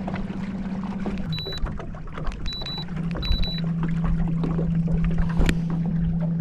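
Minn Kota electric trolling motor humming steadily, its hum dropping in pitch between one and three seconds in as the motor's speed changes. Three short high electronic beeps sound in the first half, and a sharp click comes about five seconds in.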